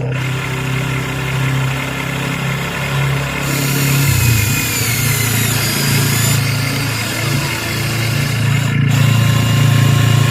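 Steady engine-like idling drone from a radio-controlled construction vehicle, with a higher whine layered over it for a few seconds in the middle.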